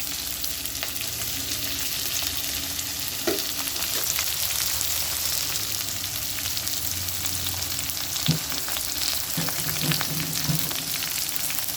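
Chopped onions and curry leaves sizzling in hot oil in a kadai, with steady fine crackling as they are stirred while they sauté, and a couple of short knocks.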